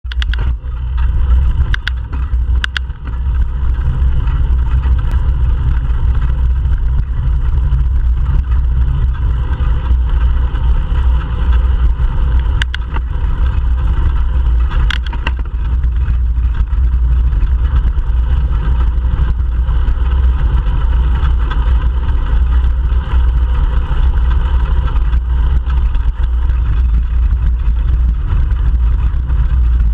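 Steady low rumble of wind buffeting a bike-mounted GoPro Hero3 Black's microphone, mixed with tyre and road noise from a bicycle rolling along the street. A few sharp clicks or knocks cut through it, a couple near the start and a couple more in the middle.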